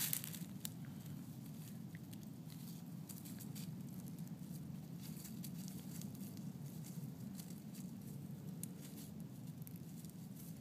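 Light, scattered crackling and rustling of dry grass, leaves and pine needles as an Old English Sheepdog puppy noses and paws through them, over a steady low hum.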